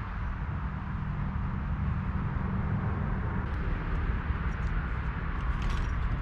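A boat motor running steadily, a low drone with a hiss over it, with a few light clicks near the end.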